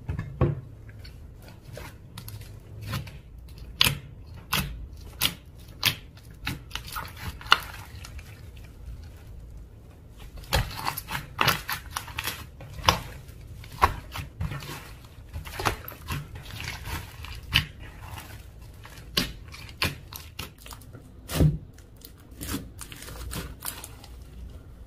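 Slime being squeezed and stretched by hand, giving irregular sticky pops and clicks, several a second, some of them sharp.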